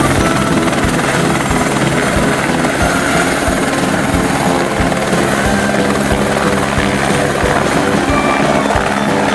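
Helicopter lifting off and flying past: a steady, loud rotor and turbine sound with a repeated low thudding of the blades.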